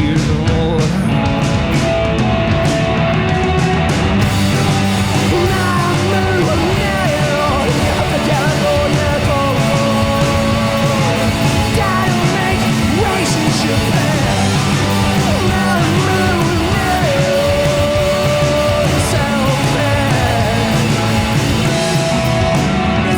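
Rock band playing live: drums, bass and electric guitar, with bending guitar or vocal lines over a steady, loud backing.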